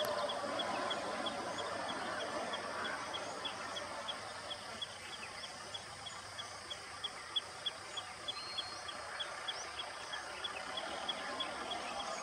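Outdoor ambience: a steady hiss of background noise with a repeated short, high chirp, about three a second, from a small calling animal.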